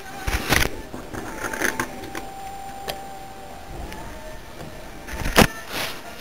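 Handheld camera being handled and rubbed close to the microphone: rustling and knocks, with one loud thump about five seconds in.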